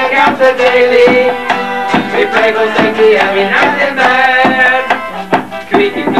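Instrumental music: a wavering lead melody over a steady percussive, strummed beat.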